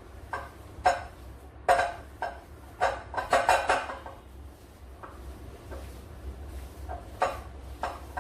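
A mixing bowl clinking and knocking as cream cheese is mixed in it by hand: a cluster of sharp knocks in the first four seconds, then two more near the end.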